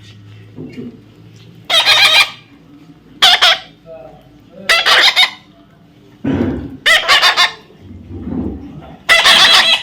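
Pet parrot screeching: five loud, harsh calls, each under a second, about one every one and a half seconds.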